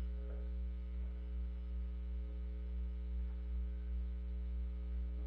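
Steady electrical mains hum: a low, unchanging drone with a row of fainter higher overtones, and nothing else heard.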